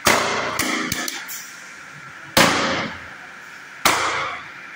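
A long white PVC pipe slammed hard against a concrete floor in a strength test, banging and ringing out without breaking. Three heavy strikes about a second and a half apart, with a couple of smaller bounces just after the first.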